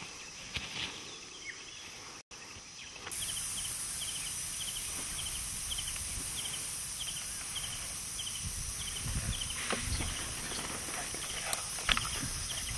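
Rustling and small crackles in dry leaf litter as people crawl. A few seconds in it changes to a steady high hiss of bush ambience, with a short high chirp repeating about two to three times a second. A few low thumps come near the end.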